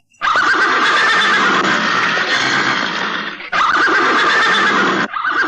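A horse whinnying loudly: two long neighs back to back, a third starting near the end, as the horse rears.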